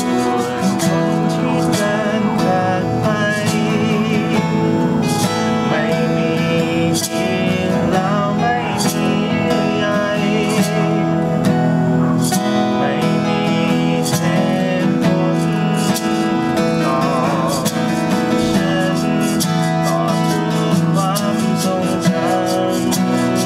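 Two acoustic guitars playing a song together, strumming and picking chords at a steady, even level.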